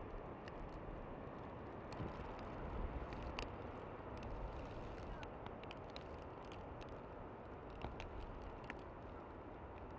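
Outdoor ambience during heavy snowfall: a steady low rumble and hiss with scattered faint ticks.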